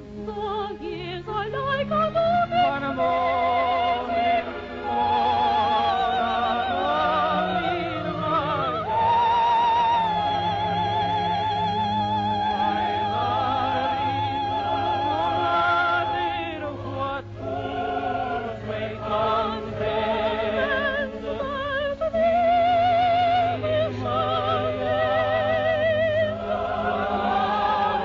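A soprano and a male voice sing an operetta love duet with wide vibrato, over sustained orchestral accompaniment, as on an early 1930s film soundtrack.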